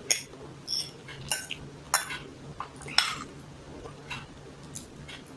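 Eating utensils clinking and tapping against a dish while eating noodles: about seven sharp, irregular clinks.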